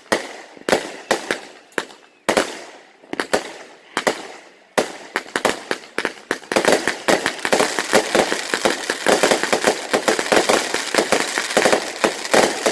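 Consumer fireworks going off: separate sharp bangs, each trailing off, about two a second, then from about six seconds in a dense, continuous crackling of many rapid bangs.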